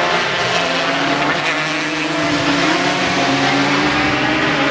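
Racing motorcycle engines running hard on the circuit, a steady, unbroken engine note with more than one engine line overlapping.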